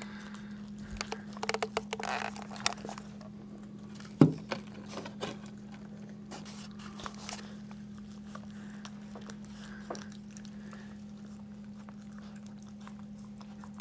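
Bichon Frise mother licking and nosing her newborn puppy: a run of small wet clicks and rustles, thickest in the first few seconds, with one sharp thump about four seconds in, over a steady low hum.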